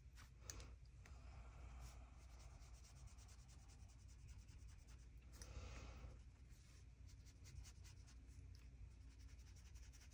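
Near silence with a faint rubbing of a wet watercolor brush on hot-press paper as paint is lifted from a swatch, a little louder about halfway through, over a low steady hum.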